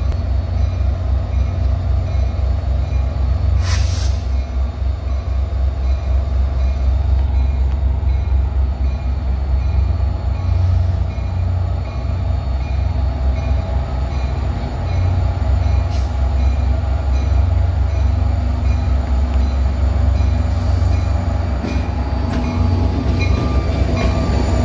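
NJ Transit EMD GP40PH-2B diesel locomotive running steadily as it approaches slowly along the platform track and draws alongside, its deep engine drone the loudest sound throughout. A brief high-pitched sound comes about four seconds in.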